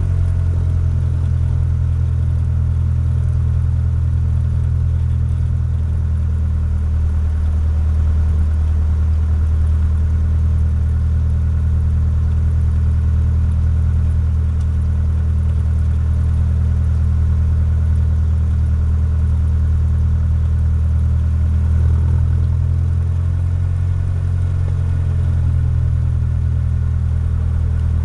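Cessna 152's four-cylinder Lycoming engine running steadily at low power, with a slight shift in its note about 22 seconds in.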